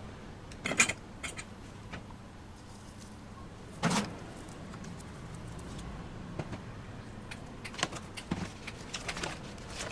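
Kitchen handling noises: jars and a metal spoon clinking and tapping against a plastic mixing bowl as seasonings are added. A sharp click comes about a second in, a duller knock at about four seconds, and quicker small taps of the spoon near the end.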